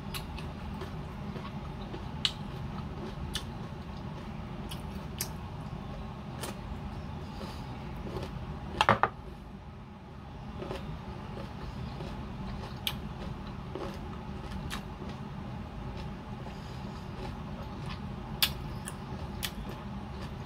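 Close-up eating sounds of a person chewing mango slices dipped in chili sauce: sparse sharp mouth clicks and smacks over a steady low hum, with one louder short burst about nine seconds in.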